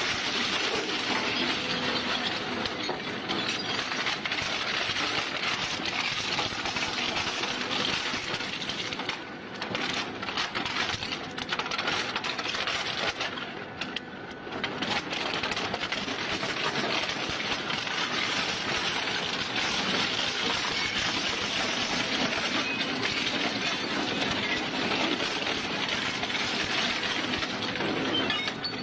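Twin-shaft shredder's hooked steel cutters crunching and cracking plastic housings, such as electronics cases, in a continuous stream of breaking plastic. There are two brief lulls, one near ten seconds in and one near fourteen.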